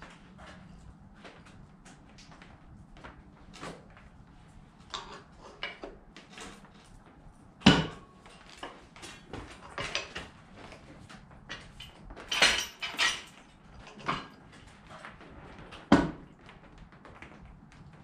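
Irregular clinks and knocks of metal tools and parts being handled and set down during an engine teardown. The loudest clanks come about 8 seconds in, twice around 12 to 13 seconds, and again near 16 seconds.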